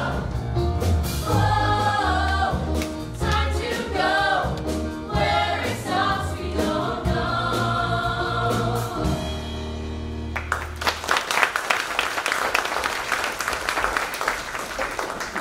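A group of voices sings a stage song over instrumental accompaniment with a steady bass line. The song ends about ten seconds in, and the audience applauds.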